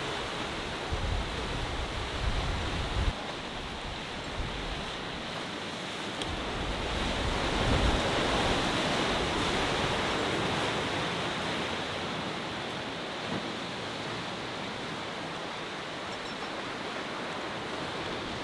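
Sea waves washing against the shore as a steady rushing noise, swelling louder about eight seconds in. Wind buffets the microphone in the first few seconds.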